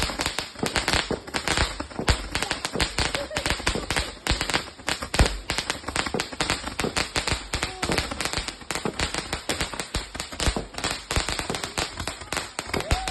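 A 'machine gun' firework going off: a rapid, continuous string of sharp bangs, several a second, without a break.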